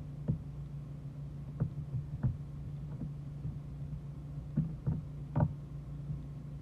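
A soldering iron's tip pressing and scraping on the hard HDPE plastic of a kayak hull as it smooths a melted-in plastic patch, giving a few soft taps, the strongest about five seconds in, over a steady low hum.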